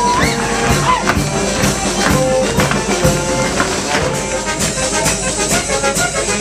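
Live wind band with drums playing a lively folk dance tune: held reed and brass notes over a steady beat of about two strikes a second.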